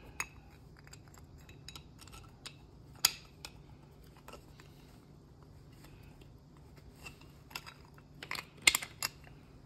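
Small metal clicks and knocks as a steel lever is fitted by hand onto the cast body of a VW Rabbit brake proportioning valve. The sharpest come about three seconds in and in a quick cluster near the end, over a faint steady low hum.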